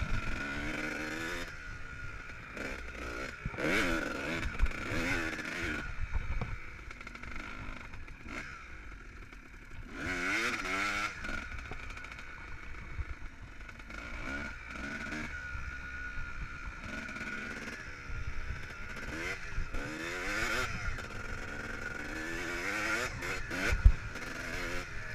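Kawasaki KX250 dirt bike engine under riding load, revs climbing and falling back again and again as the throttle is rolled on and off. A single sharp knock comes near the end.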